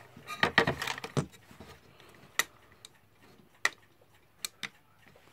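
A glass pane and plywood panels handled on a tabletop: a quick flurry of knocks and clatter in the first second, then a few single sharp clicks spaced over the rest.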